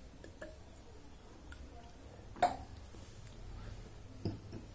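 A stainless steel tumbler is set down with a sharp clink about halfway through, among faint small clicks, with a softer knock near the end.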